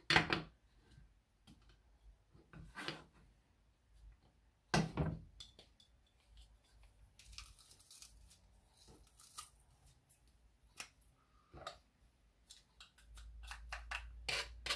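Red plastic garlic press being squeezed hard, its handles clicking, with scattered knocks and taps on the cutting board, the loudest about five seconds in. The garlic won't push through the cheap press.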